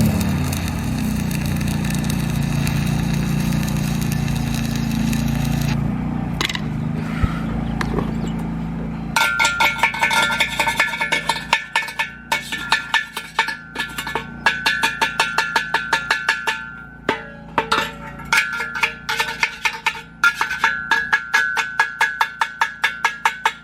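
A steady low engine drone for about the first nine seconds, then background music with a fast, clicking percussive beat and a few held tones.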